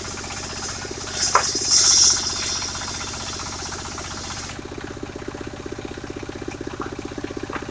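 Engine of a mobile circular sawmill running with the blade out of the wood, with a steady, even pulsing. A short hiss and a click come about a second and a half in. From about halfway through, the hiss fades and the engine's pulsing stands out alone.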